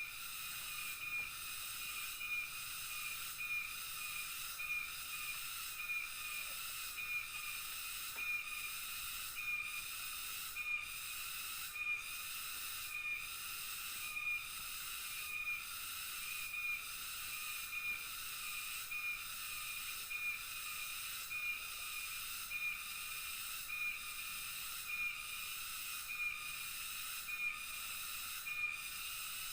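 Rainforest insect chorus: a steady high-pitched buzz, with a short chirp repeating about once a second.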